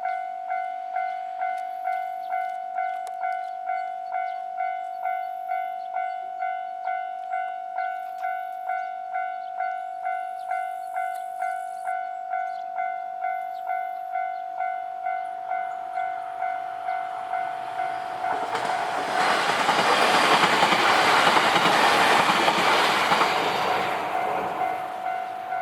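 Japanese level-crossing warning bell ringing steadily, a little over two strikes a second. An electric train then passes through the crossing: its rumble and wheel noise build up past the halfway point and become the loudest sound near the end, partly drowning the bell.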